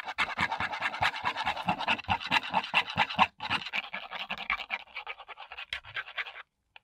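Small paintbrush stirring and mixing metallic paint in a paper cup: a fast run of scratchy strokes against the paper, with a brief pause about three seconds in, stopping near the end.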